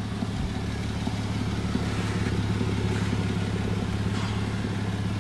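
A car engine idling steadily: a constant low hum with a fast, even pulse.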